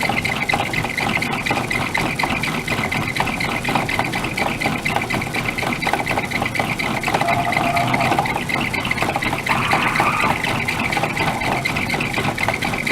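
Craftsman 109 metal lathe running under power, a steady clattering mechanical noise with a whine through it, from its drive belt and gearing turning the spindle and chuck.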